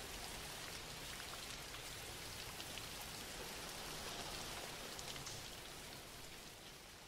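Steady rain falling, a soft even hiss with scattered drop ticks, fading out near the end.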